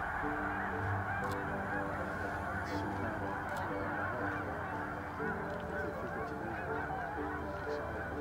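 A huge flock of snow geese calling all at once: a dense, steady din of countless overlapping honks, with no single call standing out.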